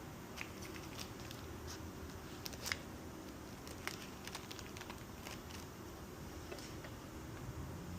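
Scattered light clicks and small handling noises, a few sharper ticks among them, over a steady low background hum.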